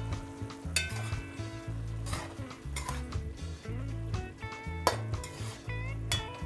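Metal spoon stirring and scraping through a pot of simmering string beans, with several clinks of the spoon against the metal pot and a light sizzle from the pot. Background music with a pulsing bass runs underneath.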